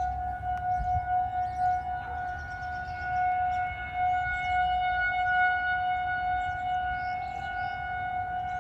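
Outdoor tornado warning siren sounding one steady, held tone.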